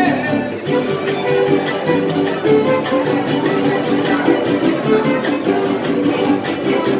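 Son huasteco trio playing: bowed violin melody over the strummed huapanguera and jarana huasteca.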